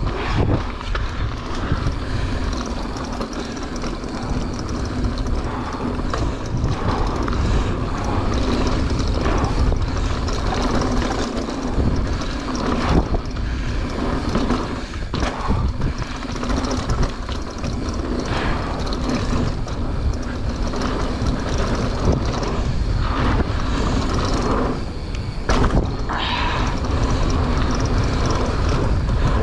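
Mountain bike descending a dirt flow trail, heard close up: steady wind rush on the microphone and tyre noise, with the bike rattling and knocking sharply over bumps several times.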